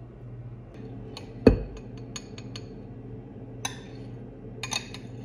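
A metal spoon clinks and scrapes against a glass bowl and a glass mason jar while whipped dalgona coffee is spooned onto iced milk, a string of sharp clinks over a few seconds. About a second and a half in comes a single loud thump, the loudest sound, as the glass jar is set down on the wooden counter.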